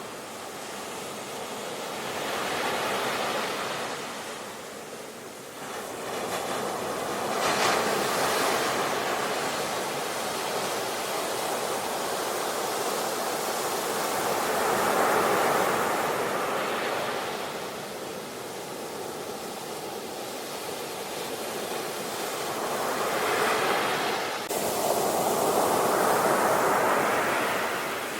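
Ocean surf: waves breaking one after another, each surge of noise building and falling away over a few seconds. One wave comes in abruptly near the end.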